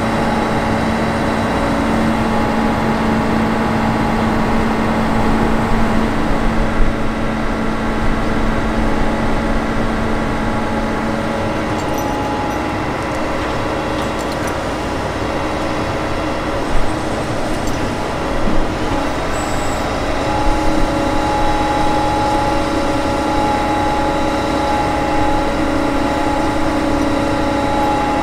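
The engine and hydraulic crane of a MAN Kat-based bridge-laying truck running steadily while lifting aluminium bridge segments; the hum shifts in pitch about twelve seconds in and again about twenty seconds in. A few short knocks are heard along the way.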